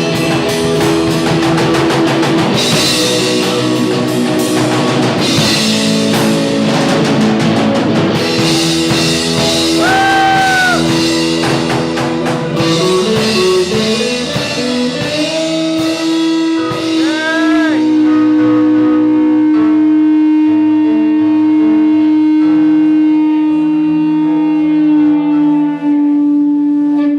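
Rock band music with electric guitar and drum kit. The drums stop about halfway through, and the band ends on one long held guitar note.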